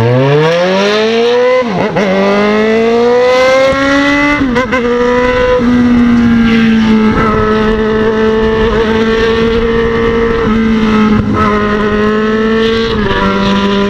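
Yamaha XJ6's 600 cc inline-four with a 4-into-1 exhaust and no silencer, pulling hard from a standstill. The revs rise steeply through first gear, with an upshift about two seconds in and another about four and a half seconds in. Then it runs at a steady cruising pitch, with small throttle changes.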